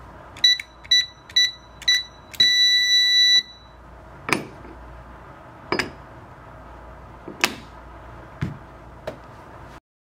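ENFORCER SK-1123 keypad beeping once for each of four key presses, about half a second apart, then giving one longer beep of about a second as the code is accepted. This is followed by five sharp clacks as the maglock's armature plate is handled.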